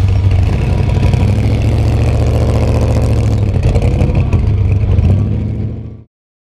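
Trophy truck engine running steadily at a low rumble, with a brief change in pitch about three and a half seconds in, then fading out and stopping about six seconds in.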